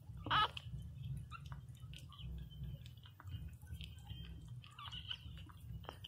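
Newborn Pinscher puppies crying: one short, sharp squeal about half a second in and a fainter whimper near the end, with small wet smacking sounds of suckling and licking between.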